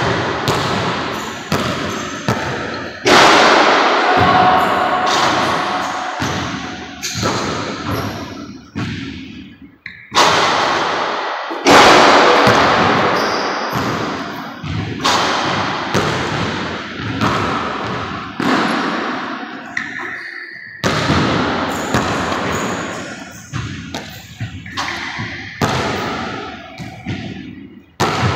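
A basketball repeatedly bouncing and dribbling on a hardwood gym floor and striking the backboard and rim on shots. Each thud echoes and dies away slowly in the large, empty gym.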